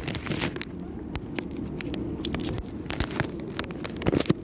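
A plastic food packet crinkling in the hand, a dense run of sharp crackles, over a steady low background rumble.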